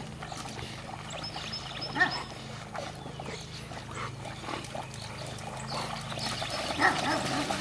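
Dogs swimming and splashing in a pond, with a few short dog sounds; the loudest comes about two seconds in and another near the end.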